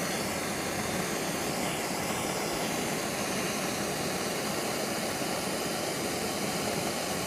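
Hose-fed gas torch burning with a steady hiss, its flame held on an aluminum soda can to heat it for overhead brazing.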